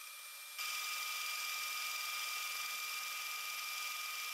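CNC milling spindle running with a steady high whine over hiss while machining aluminium plate; the sound steps up abruptly in level about half a second in.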